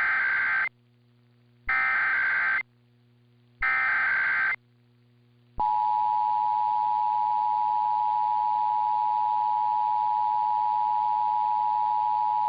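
Emergency Alert System tones opening a Required Monthly Test: three short bursts of the digital SAME header, about two seconds apart, then after a brief gap the steady two-tone EAS attention signal starts about five and a half seconds in and holds.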